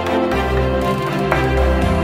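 Instrumental background music with a regular pulse about once a second.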